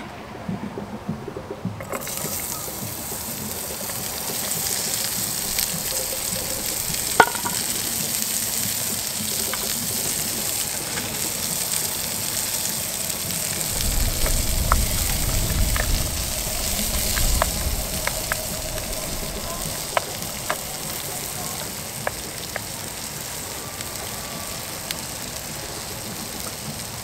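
Chopped onions sizzling in a hot frying pan on a Trangia Mini spirit stove, the sizzle starting suddenly about two seconds in as they go into the pan. Scattered clicks of a utensil against the pan as they are stirred, and a brief low rumble in the middle.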